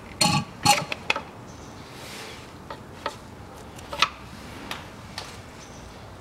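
Oil-filling tube and syringe being handled at the Haldex coupling's filler hole: a squelching gulp and a few sharp clicks in the first second, then scattered clicks with a sharper one about four seconds in as the tube is pulled out.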